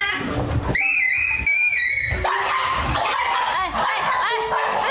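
Music with held and sliding high tones.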